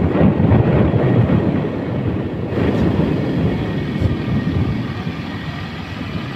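Rumbling road noise of a moving vehicle with wind buffeting the microphone, easing slightly near the end.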